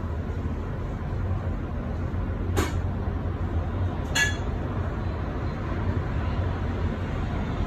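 Steady low rumble with two sharp clinks, about a second and a half apart, near the middle.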